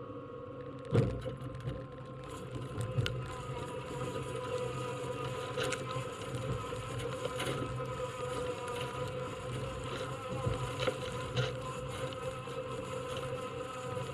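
Farmall 560 tractor and John Deere 34 forage harvester running steadily while chopping corn silage, with a steady hum and whine. There is a loud knock about a second in and scattered clicks after it.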